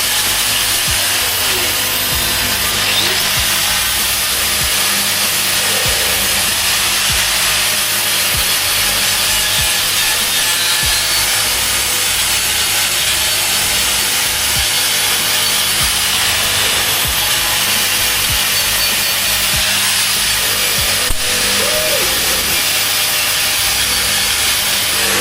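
Bench grinder grinding metal: a steady, loud grinding hiss that holds level throughout, with one sharp click about three-quarters of the way in.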